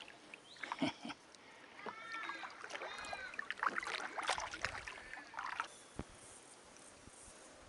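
Kayak paddling, with paddle knocks and splashes against the hull, and a run of arching animal calls about two to three seconds in.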